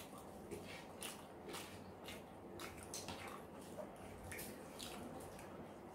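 Close-miked eating sounds: wet chewing and smacking of mouths, with irregular soft clicks, as fried rice and chicken are eaten by hand.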